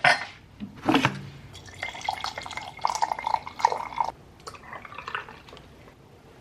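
Kitchen sounds: two sharp knocks, then liquid pouring into a cup with a ringing tone for about two seconds.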